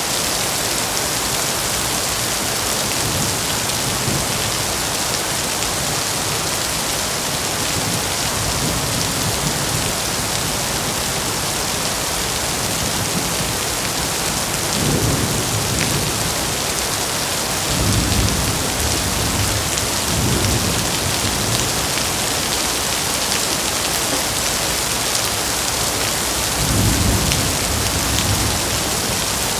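Heavy rain falling steadily, with distant thunder rumbling low several times, the loudest swells about halfway through and near the end.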